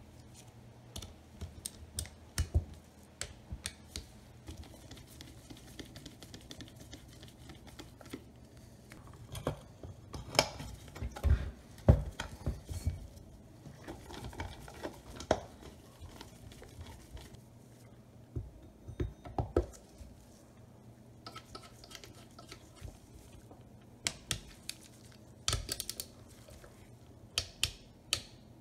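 Irregular clicks, knocks and clatter of hand tools and engine parts on a workbench: a socket ratchet clicking on bolts and metal and plastic parts of a small two-stroke engine being handled and fitted during reassembly. The knocks come in clusters, the loudest about ten to thirteen seconds in.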